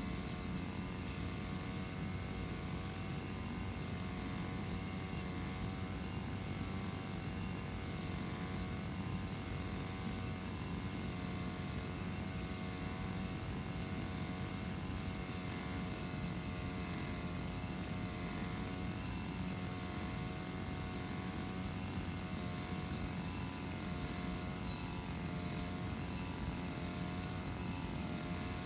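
Brush cutter's small engine running steadily as it cuts grass, its pitch wavering slightly as the load changes.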